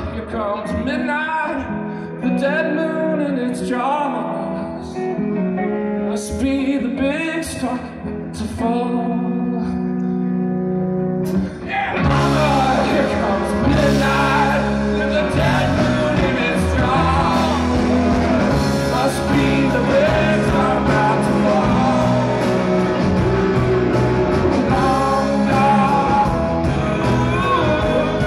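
Live rock band with a man singing over electric guitar. About twelve seconds in, the full band with drums and cymbals comes in and the music gets louder.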